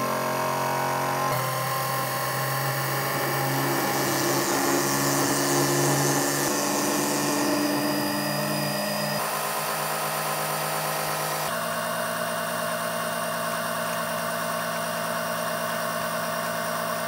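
Small battery-powered electric oil extraction pump running steadily, sucking used engine oil up out of a marine diesel through the dipstick tube and pushing it into a container. The steady whirr changes pitch abruptly a few times, with a hiss over it for a few seconds in the middle.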